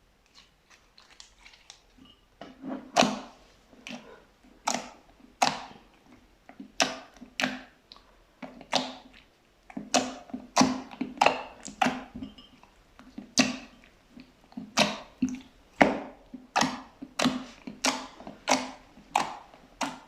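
Fluffy slime being pressed and squeezed by hand, with trapped air pockets popping. Faint soft crackles come first, then from about two seconds in a steady run of sharp pops and squelches, roughly two a second.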